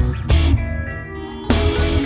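Heavy rock karaoke backing track: distorted electric guitars over bass and drums, with loud drum and cymbal hits about a third of a second in and near the end, and no lead vocal.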